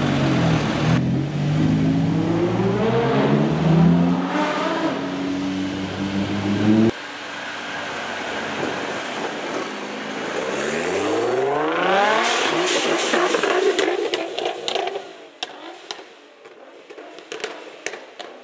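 Nissan GT-R R35 twin-turbo V6 revving hard and accelerating, its pitch swinging up and down and then climbing in rising sweeps across a few cut-together passes. Near the end the engine note falls away and a quick run of sharp pops and cracks follows.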